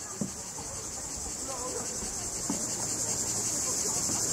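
Steady high-pitched chorus of cicadas in the riverside trees, growing slightly louder. A light knock comes just after the start and another about halfway through.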